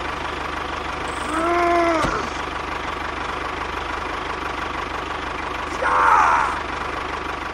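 Tractor engine running steadily at an even pace. A short pitched sound rises and falls about one and a half seconds in, and a brief higher-pitched sound comes about six seconds in.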